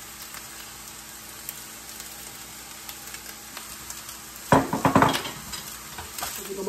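Fried rice and mixed vegetables sizzling in a stainless steel skillet. About four and a half seconds in, a wooden spatula stirs and scrapes against the pan in a loud burst of knocks, and it stirs again near the end.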